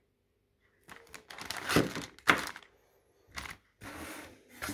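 Unpacking noises: a plastic bag and a cardboard box being handled, with rustling and a few sharp knocks in the middle.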